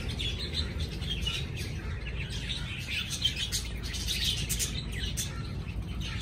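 Caged aviary birds chirping, with many short, high chirps overlapping throughout, over a low rumble.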